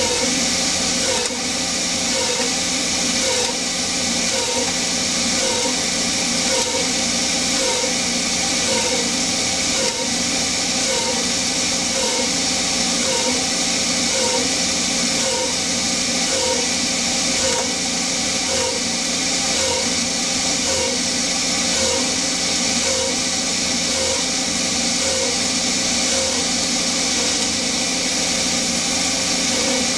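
Hercus PC200 CNC lathe turning 6061 aluminium, its spindle running under a steady hiss of air from the Noga air mister. A faint regular pulse repeats about one and a half times a second.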